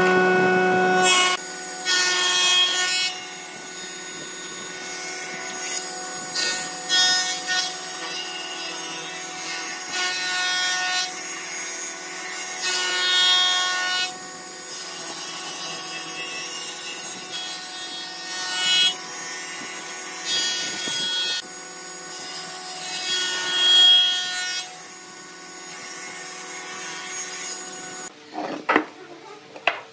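Table saw ripping a wooden board: the spinning blade's steady whine and hum, with the cutting noise rising and falling as the wood is fed through. The sound drops off suddenly near the end, followed by a few sharp knocks.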